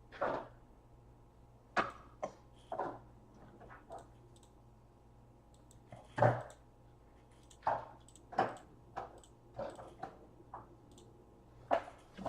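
Baseball trading cards being handled and set down on a table: about a dozen short, irregular taps and slaps, the loudest about six seconds in.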